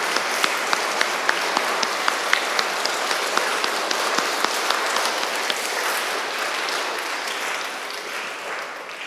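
A church congregation of schoolchildren applauding, with one nearby clapper's sharp claps standing out about three times a second. The applause dies away over the last two seconds or so.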